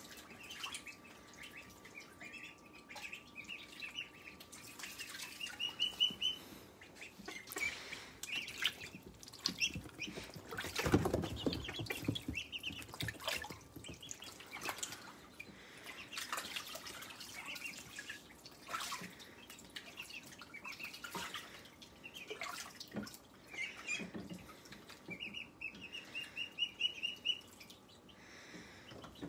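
Domestic ducklings peeping in quick runs of short, high chirps, with water splashing and dripping as they paddle in and clamber out of a sink. A louder jumble of bumping and knocking comes about eleven seconds in.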